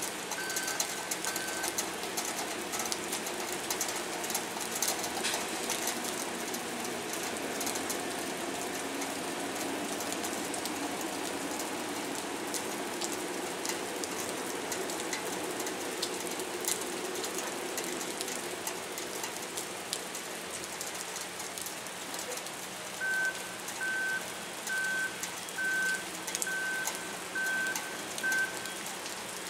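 Steady rain falling on the quay, with a vehicle's engine running. A reversing alarm beeps about once a second at the very start and again for several seconds near the end.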